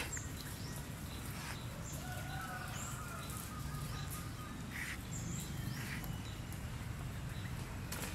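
Birds chirping in short, scattered calls over a steady low background hum.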